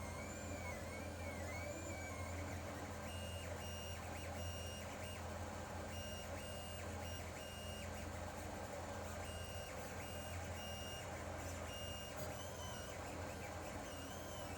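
Lulzbot TAZ 3D printer running, its stepper motors whining in short high tones that switch on and off as the print head moves. Some tones glide up and down early on. A steady low hum runs underneath.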